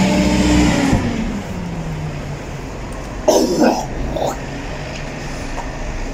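A motor vehicle passing by, its engine hum dropping in pitch and fading during the first second and a half, leaving a low steady hum. About three seconds in comes a short loud vocal sound like a cough, with a smaller one a second later.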